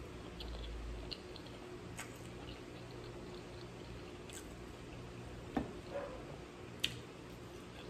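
Soft clicks and small wet mouth sounds from eating sushi, scattered a few seconds apart, over a steady low background hum.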